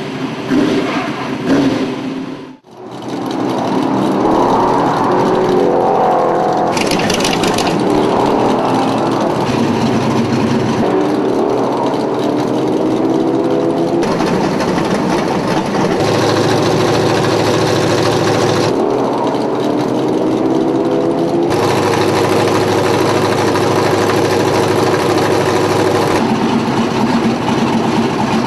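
Dirt-track race car engines running in the staging area, idling with occasional revs. The sound changes abruptly every few seconds as the footage cuts from car to car.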